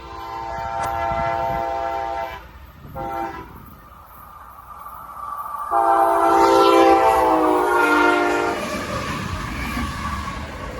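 A CSX freight locomotive's air horn sounds for the grade crossing: a long blast, a short one, then a loud long blast whose pitch drops as the locomotive passes. The rumble of the train rolling by follows.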